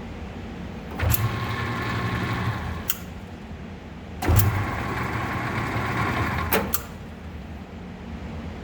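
Myford Super 7 metal lathe switched on and run for about two seconds, then switched off; about a second and a half later it is started again, running for just over two seconds, the two runs in forward and then in reverse. A click of the switch marks each start and stop, and the lathe runs with a steady hum.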